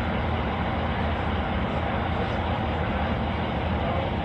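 Steady low rumble and hiss of an idling motor vehicle, even throughout.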